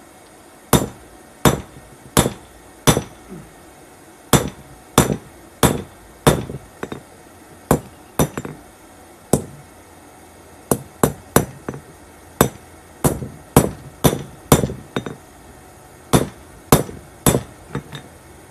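A hand hammer strikes red-hot steel from a car coil spring on a round steel anvil block set on a wooden stump. About two dozen sharp, ringing blows come in bursts of two to five, with short pauses between.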